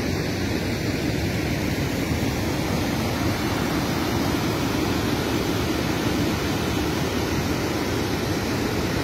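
Steady rushing noise of fast-flowing muddy floodwater, even and unbroken throughout.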